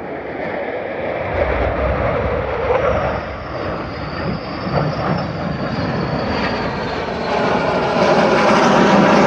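Aircraft engine noise growing steadily louder as a plane comes in low and close.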